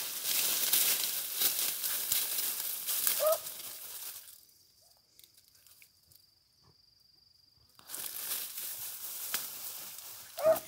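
Grass and leaves rustling and crackling against the phone as it is moved through dense brush, with a single short animal yelp about three seconds in. After about four seconds the rustling stops and there is near silence with a faint steady high tone, until the rustling starts again about eight seconds in.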